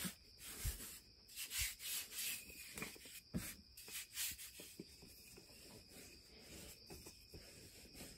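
Hands pressing, patting and rubbing a ball of cracker dough on a floured counter: soft, irregular scuffs and pats, busier in the first half. Near the end a wooden rolling pin is set on the dough.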